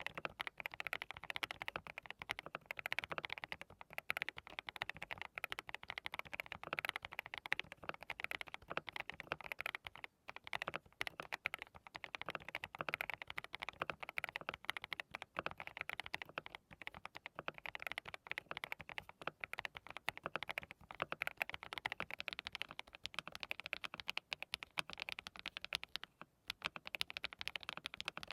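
Rapid, continuous typing on a DT35 87-key custom mechanical keyboard fitted with hand-lubed Haimu Midnight linear switches: many quick keystrokes in an unbroken run with a few brief pauses. Near the end the board is fitted with HMX Cheese linear switches.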